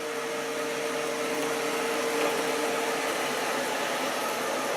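JISIWEI i3 robot vacuum cleaner running: the steady whir of its suction fan and brushes as it moves across the floor, with a steady hum that fades out about three seconds in.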